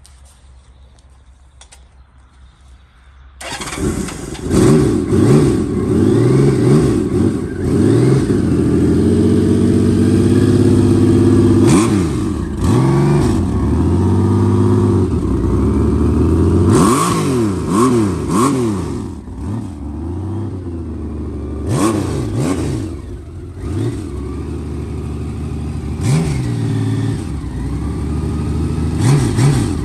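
Honda Valkyrie F6C's 1500 cc flat-six, on its stock exhaust, starting about three seconds in and then idling, with the throttle blipped repeatedly so the revs rise and fall again and again.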